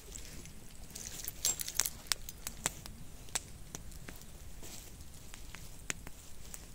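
Wood fire crackling, with sharp pops at uneven intervals, most of them between about one and a half and three seconds in.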